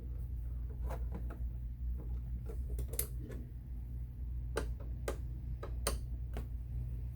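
Irregular light clicks and taps of a screwdriver backing out the corner screws on the back of a Dell Inspiron 3477 all-in-one computer, over a steady low hum.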